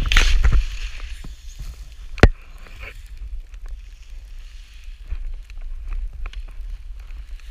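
Skis cutting through powder snow, with a loud rush of spray in the first half second, then quieter swishing and scattered light ticks over a steady low rumble of wind on the camera. A single sharp knock comes about two seconds in.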